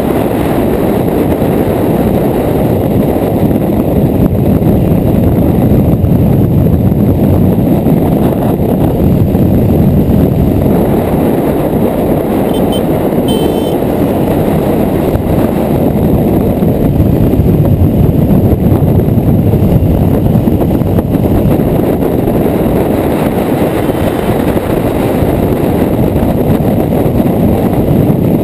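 Heavy wind rush on the microphone of a Honda CRF250L motorcycle ridden at speed, with the bike's single-cylinder engine running beneath it.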